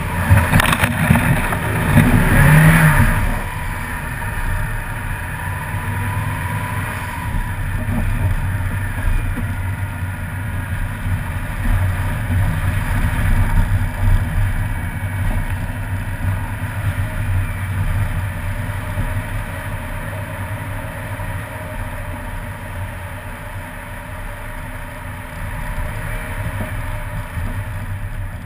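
A car pulling away and driving on a wet, slushy road. In the first few seconds the engine revs and the tyres churn through snow, which is the loudest part. After that comes steady engine running and tyre noise on the wet road.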